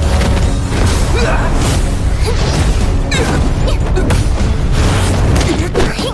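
Action sound effects for a flying chase and energy-blast fight: a dense run of booms and impacts with whooshes, over loud soundtrack music. It comes in abruptly at the start.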